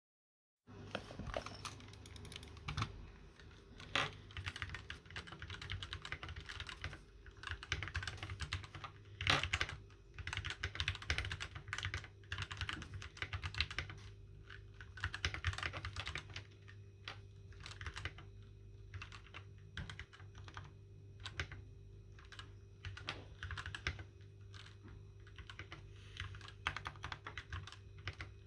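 Continuous typing on a Keychron K6 aluminium mechanical keyboard: rapid, irregular key clacks, starting just after a moment of silence, over a faint steady hum.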